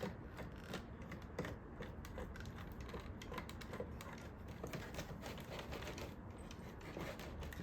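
Precision screwdriver turning a brass screw out of a Roomba's plastic housing: rapid, irregular light clicks and ticks as the screw works loose.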